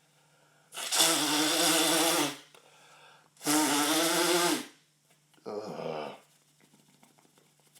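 A man's loud, strained vocal sounds during a sneezing fit: two long, breathy cries of about a second and a half each, then a shorter, quieter one.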